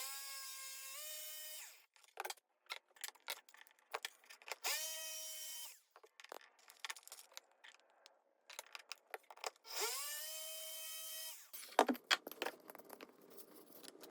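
Electric drill run in three bursts of one to two seconds, each spinning up with a rising whine, drilling holes in wood through a center-hole drilling jig. Small clicks and knocks of handling come between the bursts.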